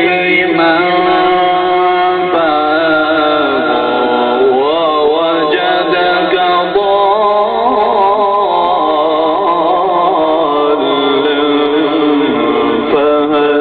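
A solo voice chanting long held notes that waver and glide slowly in ornamented runs, in the melodic style of Islamic devotional recitation.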